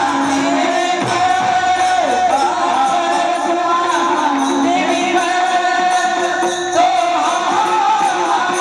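A woman singing a Marathi devotional abhang in a high, ornamented melody, over steady jingling hand percussion.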